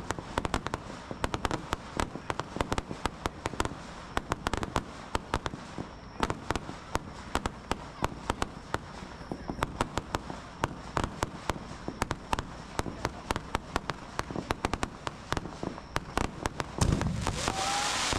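Fireworks going off: a dense run of sharp crackling pops, several a second. Near the end a louder low boom is followed by a thicker rush of crackle.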